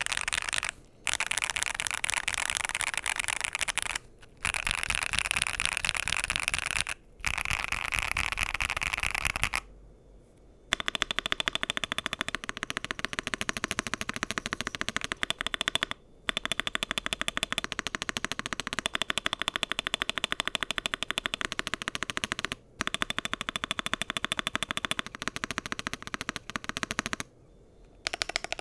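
Epomaker Magcore 87 mechanical keyboard with Kailh Box Inductive switches, PBT double-shot keycaps and an aluminum case, typed on fast in stretches of rapid key clacks. There are brief pauses, the longest about ten seconds in and another near the end.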